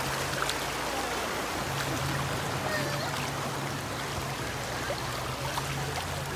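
River water rushing over shallow rapids, a steady babbling noise.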